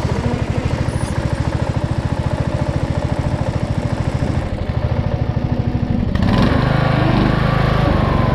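Race lawnmower's engine running with a steady, even firing beat. It gets louder about six seconds in.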